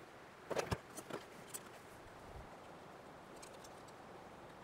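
A few light clicks and clinks of metal tools and brass fittings being handled in a plastic tool organizer, bunched in the first second and a half. After that only a faint, steady background hiss.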